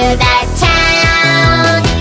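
Upbeat instrumental children's music with a steady beat and long held melody notes.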